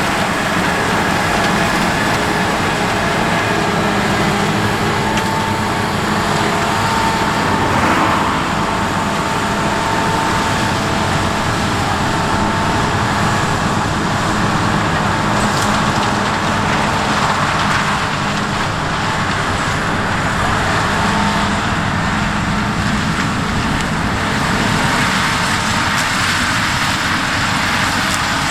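Heavy farm machinery, a combine harvester or grain tractors, running steadily through the corn harvest: a continuous engine drone with a faint steady hum over it and no breaks.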